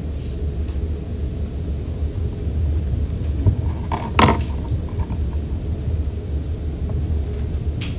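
A steady low rumble, with a sharp knock about four seconds in and a faint click near the end.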